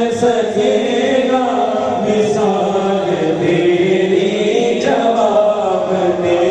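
Men's voices singing a Malayalam song together into microphones over a hall PA, in long held, chant-like notes.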